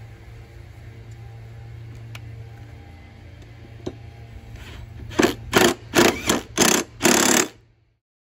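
Cordless impact wrench hammering a mower-deck blade spindle bolt in about six short, loud bursts, over a low steady hum.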